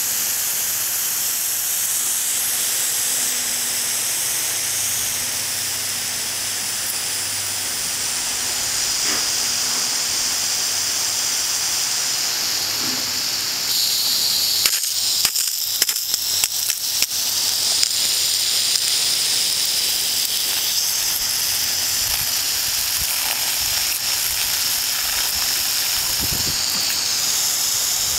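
Steady hiss of a pressurized water jet spraying, with a run of sharp crackles about halfway through.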